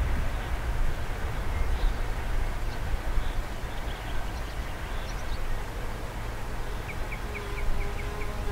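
Distant freight train of open wagons rolling away along the line: a steady low rumble that slowly eases off. Near the end a bird gives a quick run of short high chirps, and a fly starts buzzing close by.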